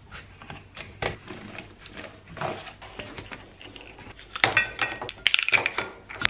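Kitchen scissors snipping through the top of a small carton, then a plastic spice container being opened and plastic measuring spoons clattering. The clattering, about four and a half seconds in, is louder than the snipping.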